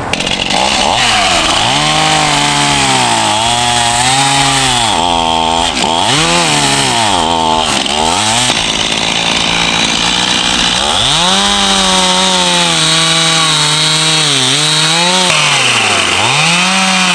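Chainsaw running and cutting firewood, its engine pitch sagging and picking up again many times as the chain bites and clears the wood. The owner says this saw is still giving him trouble.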